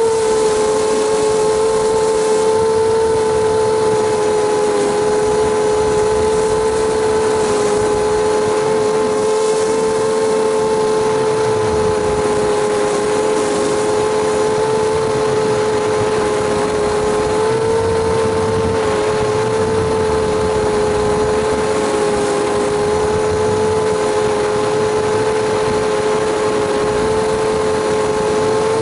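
ZMR250 quadcopter's brushless motors and propellers giving a steady whine in flight, pitch holding nearly level with slight dips, heard from a camera mounted on the quad, over a hiss of rushing air.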